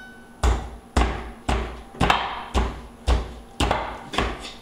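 A hand-held rock pounding meat on a board to tenderize it: a steady run of heavy thuds, about two a second, eight strikes in all.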